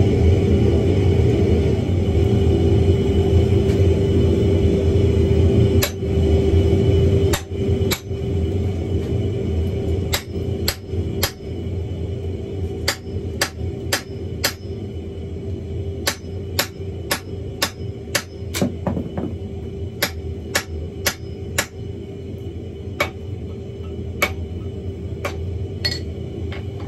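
Hand hammer striking a red-hot wrought iron hammer head on the anvil: a few blows six to eight seconds in, then runs of quick blows about three a second with short pauses between. A steady hum runs underneath, louder for the first seven seconds or so.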